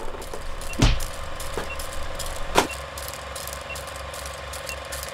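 Vintage film projector clatter sound effect over a film-leader countdown, with a short high beep about once a second. Two sharp knocks sound about one and two and a half seconds in.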